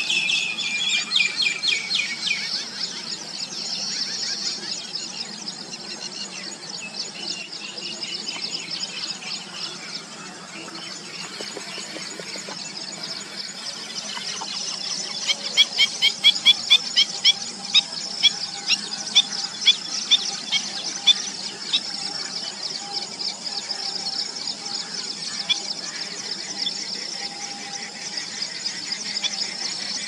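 Outdoor wildlife chorus of high-pitched trilling calls, with a run of loud, evenly spaced chirps at about two a second from about 15 to 21 seconds in.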